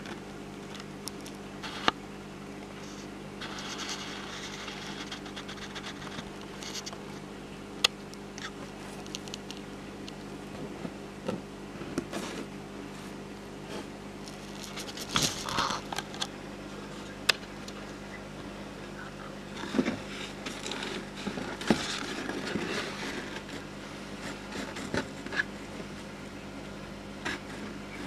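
Savannah monitor's claws scratching and tapping on a hard plastic tub floor in short bouts, with scattered sharp clicks over a steady low hum.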